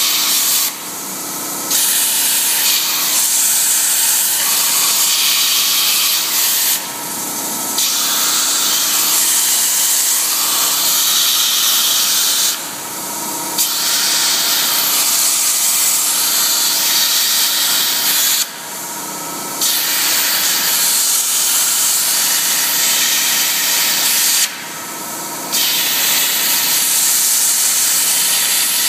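Plasma cutting torch hissing steadily as it burns holes in a steel bar. The arc cuts out for about a second roughly every six seconds, five times, as it finishes one hole and moves to the next.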